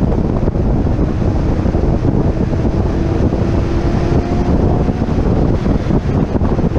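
Heavy wind buffeting on an outside-mounted microphone at track speed, over the C6 Corvette Z06's 7.0-litre LS7 V8 running under power down the straight, its engine note faintly rising through the middle.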